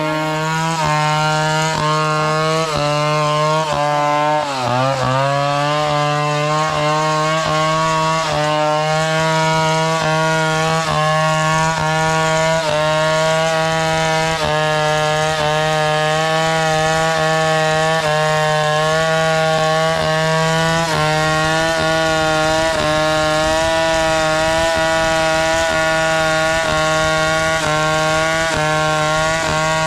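Chainsaw running at high, steady speed while cutting wood. Its pitch drops sharply about four and a half seconds in and then climbs back.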